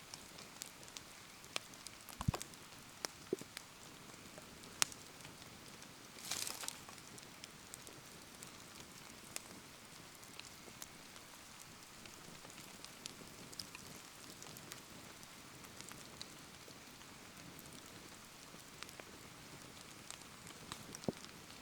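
Rain falling steadily as an even hiss and patter while a wood bonfire crackles and pops with scattered sharp snaps. A brief hiss flares about six seconds in, and a soft low thump comes about two seconds in.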